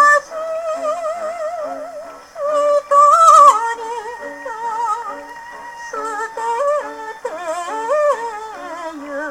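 A 78 rpm shellac record of a 1950s Japanese popular song playing on a Victrola gramophone. A melody line with strong, wide vibrato carries over a light repeating low accompaniment, between sung phrases.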